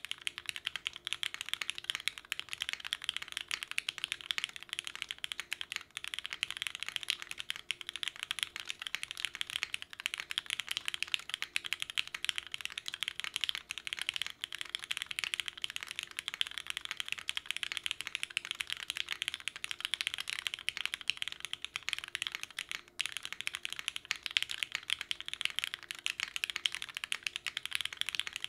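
Fast, continuous typing on a custom gasket-mounted mechanical keyboard with lubed Cherry MX Black linear switches on an ABS plate, a brass-bottomed case and GMK keycaps: a dense run of keystrokes, with one brief pause about three-quarters of the way through.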